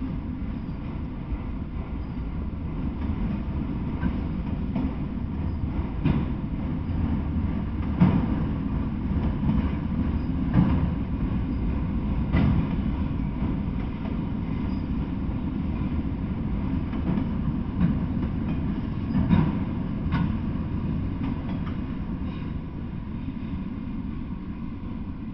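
Freight train of autorack cars rolling past: a steady low rumble of wheels on rail, with occasional sharp clanks a few seconds apart, easing a little near the end.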